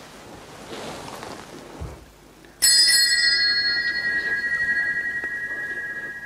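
Altar bell rung once by the Mass server: a single sudden ring of several clear, high tones that fade slowly over about three seconds. It is the single warning ring given shortly before the consecration in a Low Mass.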